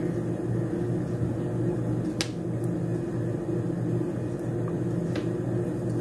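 Steady low hum with two sharp clicks, about two seconds in and again about five seconds in, from long fingernails tapping as a paper sticker is pressed onto a planner page.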